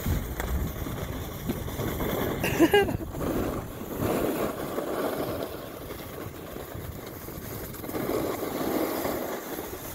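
Snowboards sliding and scraping over packed snow on a ski run: a continuous rough hiss that swells and eases as the riders carve.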